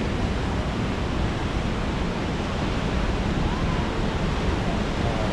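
Ocean surf breaking and washing onto the shore in a steady, even rush of white water, with wind rumbling on the microphone.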